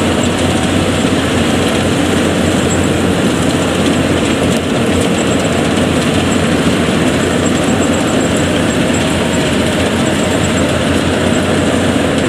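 Yanmar 82 crawler combine harvester running steadily close by: the engine and rattling threshing and cutting machinery at work as it harvests rice through soft, sticky mud.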